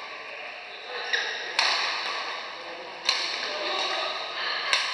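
Badminton rackets striking a shuttlecock in a rally: four sharp hits, ringing on in a large hall.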